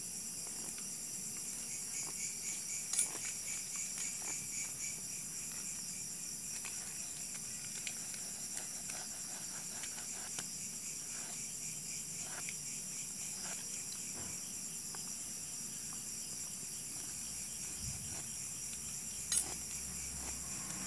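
Cutter knife scoring and cutting through a small wooden block, heard as faint scattered scrapes and clicks with two sharper clicks, one about three seconds in and one near the end. Under it runs a steady high chirring of insects.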